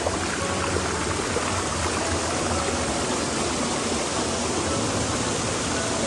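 Water of a small waterfall rushing and cascading over rocks, a steady, even rush heard close up.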